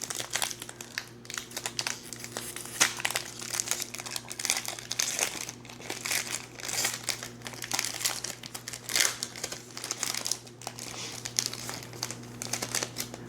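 Foil wrapper of a trading card pack being torn open and crinkled by hand, irregular crackling through the whole stretch, over a faint steady electrical hum.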